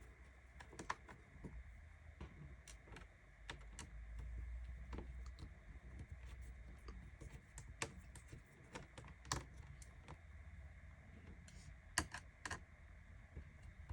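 Faint, irregular small clicks and taps of a small Phillips screwdriver working the hinge screws out of a Lenovo ThinkPad X220 laptop's screen assembly, with a low rumble underneath.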